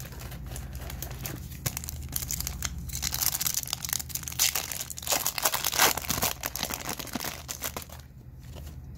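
Foil wrapper of a Topps Chrome trading-card pack crinkling and tearing as it is ripped open by hand, a dense crackle that is loudest in the middle and dies away near the end.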